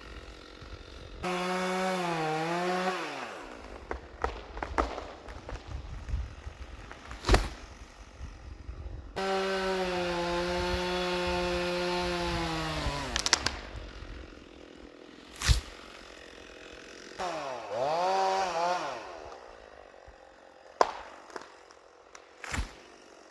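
Two-stroke chainsaw revving up in three bursts, with quieter running between them: a short one near the start, a longer steady run about nine seconds in that winds down in pitch, and a brief rise-and-fall rev near 17 seconds. Several sharp knocks are heard in between.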